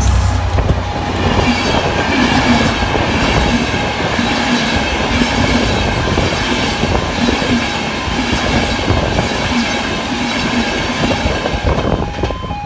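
A diesel-hauled express passing close at speed, led by a Class 67 locomotive with a strong low engine rumble at the start. Then the Class 91 electric locomotive and its coaches rush past with a steady rumble and clatter of wheels on rail, which falls away near the end.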